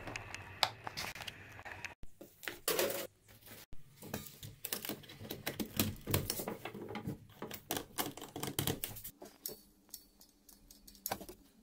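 Irregular clicks, knocks and clatter of hands working workshop fittings: a red CEE power plug pushed into its wall socket and an argon cylinder valve being turned, quieter near the end.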